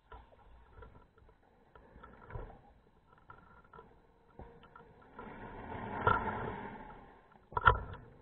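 Scuba regulator breathing underwater: faint bubble crackles, then a long rush of exhaled bubbles starting about five seconds in, and a short, loud burst of bubbles near the end.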